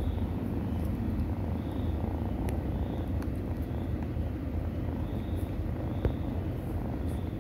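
Cat purring steadily during nursing, a close, low rumble, with a couple of faint clicks.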